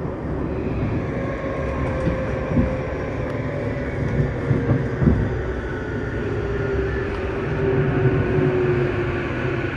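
Running sound of a Tokyu 9020 series electric train heard from inside the car: the whine of its Mitsubishi full-SiC MOSFET VVVF inverter motor drive falls slowly in pitch as the train slows. Beneath it runs the rumble of wheels on rail, with a few knocks from rail joints in the middle.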